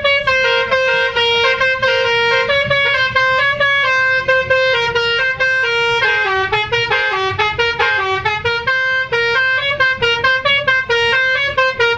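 Basuri "telolet" musical bus horn playing a tune: a fast, unbroken run of short horn notes stepping up and down in pitch.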